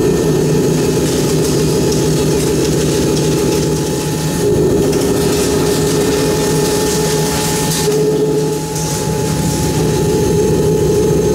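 A Φ125 mm face mill in a Mazak Integrex i-630V/6 multi-tasking machine cutting C45 carbon steel at 400 rpm: a loud, steady, dense run of insert strikes over a hum. The pitch shifts slightly about four and a half seconds in.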